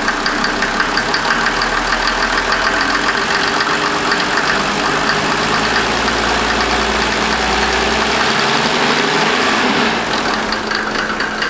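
Mercedes 300SD's OM603 inline-six turbodiesel running, its speed rising slowly for several seconds and dropping back about eight seconds in, with a fine rhythmic knock throughout. This is the engine knock the owner is chasing, which he tags as a possible bent connecting rod.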